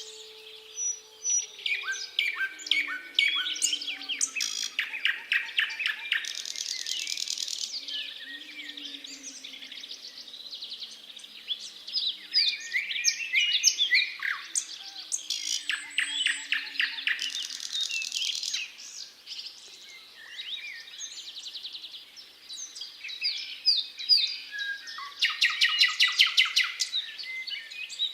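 Nightingale singing: loud rapid rattling trills and whistled phrases in bouts separated by short pauses. Underneath, a distant siren winds down faintly, falling in pitch through the first half.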